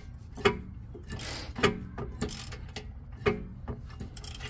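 Ratchet wrench with a socket backing out a rear brake caliper bracket bolt: a few sharp metallic clicks about every second and a half, with a brief scraping rub between the first two.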